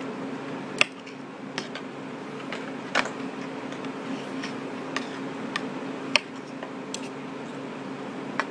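Metal fork clinking against a plate: about eight sharp clicks at irregular intervals, over a steady low hum.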